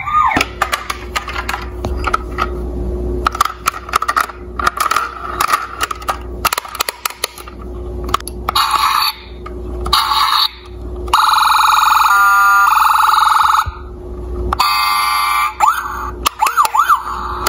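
Electronic siren and alarm sound effects from a toy police SUV, with plastic clicks and rattles as it is handled. The siren comes in short bursts from about the middle on, with one long held tone lasting a few seconds and quick wailing sweeps near the end.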